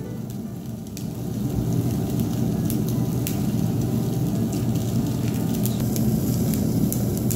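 Thick cut of beef searing on a mesh grill over charcoal: a steady sizzle and low rush of flame, with scattered sharp crackles as green-onion oil brushed on the meat flares up on the coals. It grows louder about a second in.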